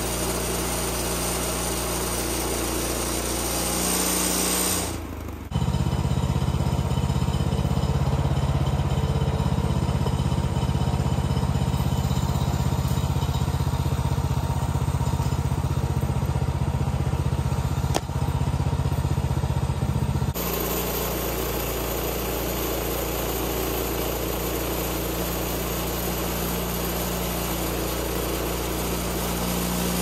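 Small gasoline engine of a Woodland Mills HM126 portable bandsaw mill running steadily. It dips briefly about five seconds in, comes back louder with a deeper hum, and changes back about twenty seconds in.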